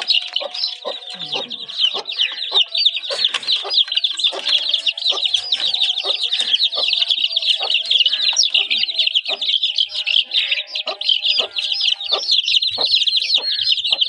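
A brood of young chicks peeping nonstop in rapid, high-pitched cheeps, with a black hen clucking in lower, shorter calls among them.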